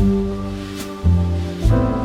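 Background jazz music: low bass notes changing about once a second under held chords, with a light high tick on the beat.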